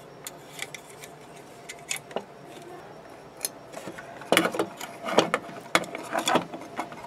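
Screws being driven by hand with a screwdriver into a steel electrical box and its metal cover plate: scattered metallic clicks and scrapes, busier and louder in the second half.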